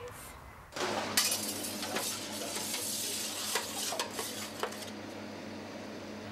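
Commercial pizza-kitchen clatter at a deck oven: scattered metal clinks and knocks over a steady hum and hiss, starting about a second in.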